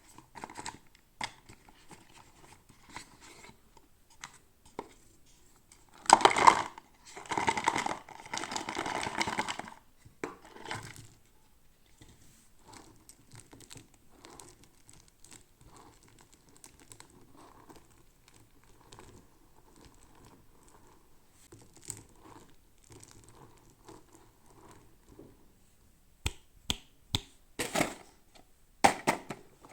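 Toy packaging being torn open and crinkled by hand. It is loudest in a stretch of rustling and tearing from about six to ten seconds in, with scattered small clicks and handling noises around it and a run of sharper clicks near the end.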